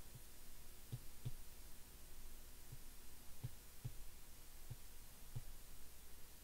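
Faint, soft low taps of a stylus on a drawing tablet as numbers are handwritten, about eight at irregular spacing, over a steady low hum.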